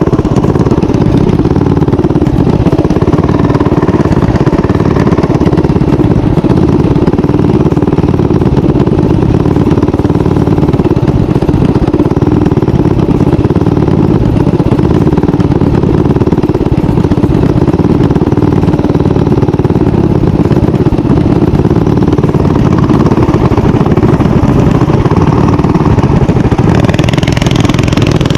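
Small mini bike engine running steadily while riding.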